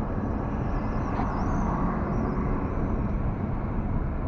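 Steady road and engine noise of a car driving at speed on a highway, heard from inside the cabin: an even rumble of tyres and engine with no sudden events.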